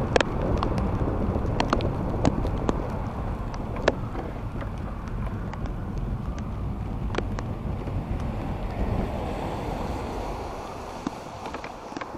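Wind buffeting a camera microphone wrapped in a Ziploc sandwich bag: a steady low rush with scattered sharp ticks, easing off near the end as the ride slows almost to a stop.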